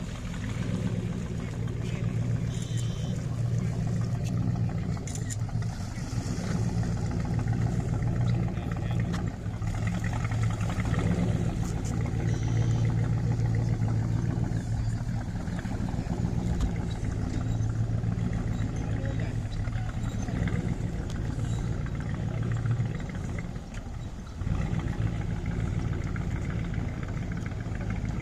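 Chevy 283 V8 inboard (Crusader marine conversion) of a 1962 Century Resorter running steadily, with a brief dip in level about 23 seconds in.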